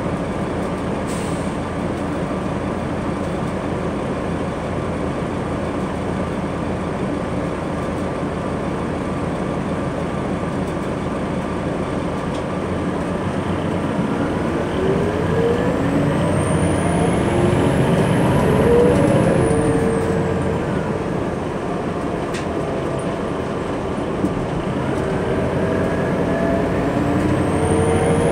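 A 2003 New Flyer D60LF articulated bus heard from inside the passenger cabin: its Detroit Diesel Series 50 diesel and Allison automatic drivetrain run steadily with road noise. About halfway through, a whine climbs in pitch as the bus accelerates and then falls back, and it climbs again near the end.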